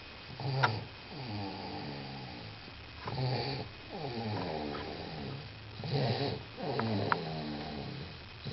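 Snoring: a run of drawn-out, buzzing snoring breaths, roughly one every one to two seconds, with a few brief clicks between them.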